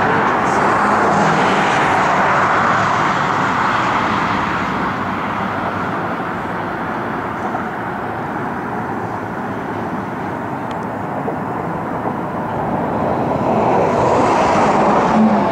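Road traffic going by, a steady rush of tyre and engine noise that swells in the first seconds and again near the end as vehicles pass.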